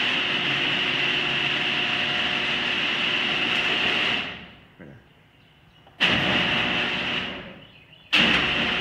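Two Genie screw-drive garage door openers running together as the doors go up: a steady motor and screw-rail whine and rattle that winds down and stops about four seconds in. A similar steady noise then cuts in abruptly twice more, near six and eight seconds.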